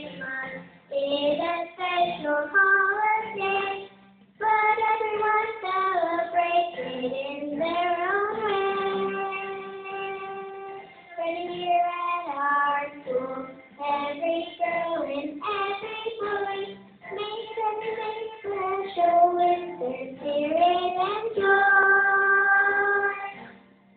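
A young boy singing a Christmas song solo into a handheld microphone, phrases with long held notes, over a backing track played from a portable stereo.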